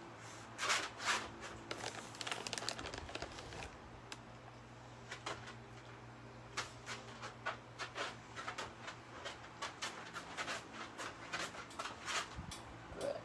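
A dog making quick, repeated short sounds, about three a second, over a low steady hum.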